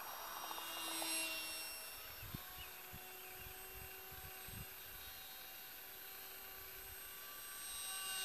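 Faint, steady whine of a small electric model airplane's motor and propeller in flight, stepping slightly higher in pitch about two seconds in.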